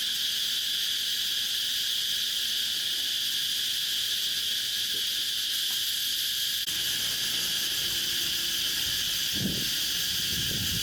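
Steady high-pitched chorus of insects, such as crickets, with a few faint low knocks near the end.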